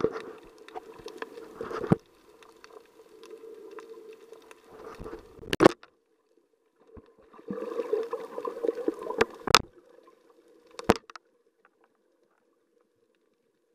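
Underwater sound picked up through an action camera's waterproof housing while snorkeling: muffled sloshing and gurgling water with a steady low hum, broken by four sharp knocks at about 2, 5.5, 9.5 and 11 seconds. It goes nearly silent for the last couple of seconds.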